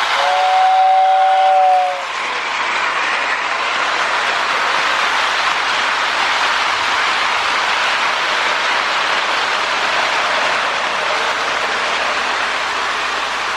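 A toy train whistle blows a steady two-note chord for nearly two seconds, then an O-gauge Lionel 2056 Hudson locomotive runs on with a steady rushing rumble of motor and wheels on the track.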